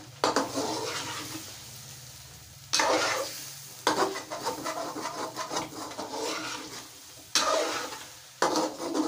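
A metal ladle stirring and scraping through thick chicken karahi gravy in a metal karahi, with the gravy sizzling underneath. About five sharp scraping strokes come at uneven intervals, each fading into the sizzle.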